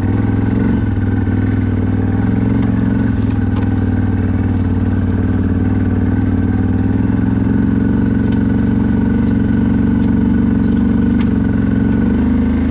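CFMoto CForce 1000 ATV's V-twin engine running at a steady, even speed while riding, with a few light clicks over it.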